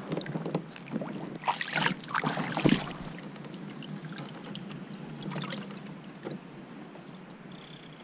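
A few quick splashes and knocks in the first three seconds as a smallmouth bass is let go over the side of a kayak, then a faint steady hiss as the kayak moves on through calm water.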